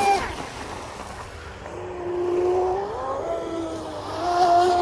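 Whine of a fast electric RC speedboat's brushless motor (TP Power 4050, 2300kv) running on the water. The whine falls away just after the start, comes back lower, steps up in pitch about two and three seconds in, and holds steady and louder near the end.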